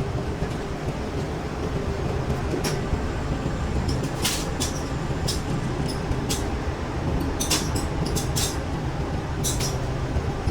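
Manual metal lathe running with a steady low mechanical hum, with short sharp ticks now and then.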